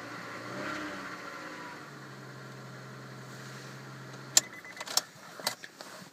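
2002 Honda Accord engine running at idle with a steady hum and a brief rise about a second in. The hum stops about four seconds in, followed by several sharp clicks and knocks.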